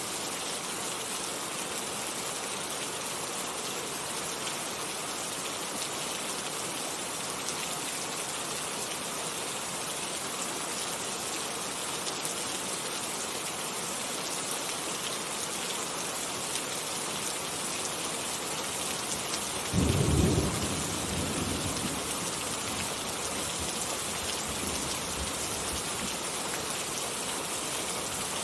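Steady rain falling, with a sudden low rumble of thunder about two-thirds of the way through that fades over a couple of seconds.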